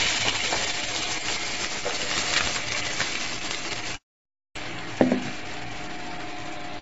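Cubed potatoes and cumin sizzling in hot oil in a kadhai, a strong frying hiss that slowly settles. After a brief cut about four seconds in, a quieter steady sizzle follows, with a single knock about a second later.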